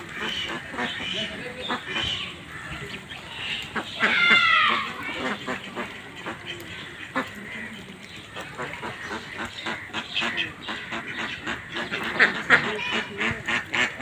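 Domestic ducks quacking on and off, with one louder, longer call about four seconds in and a quick run of short quacks near the end.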